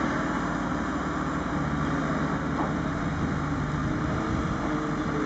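Engine of construction machinery running steadily.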